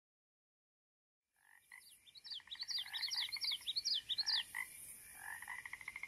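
Frogs calling: rapid pulsed trills and croaks with many short falling chirps layered over them. The calls fade in about a second and a half in.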